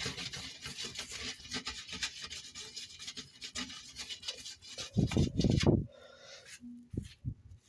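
Food residue being scraped and rubbed off a cooking pan's surface in quick, rough strokes. A louder burst of scraping and handling comes about five seconds in, then a couple of short knocks near the end.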